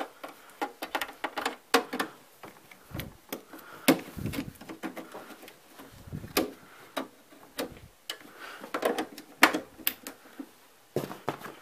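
Cable plugs being pushed into the rear ports of a Macintosh IIci by hand: irregular clicks, taps and rattles of connectors and cables against the computer's plastic back panel.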